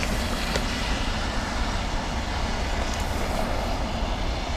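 Boeing 777-300ER's twin GE90-115B turbofan engines running at taxi power as the airliner taxis, a steady rumble with hiss.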